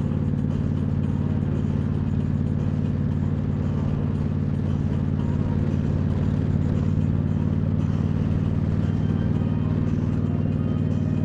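Motorcycle engine running steadily at cruising speed, a constant low drone with road and wind noise over it.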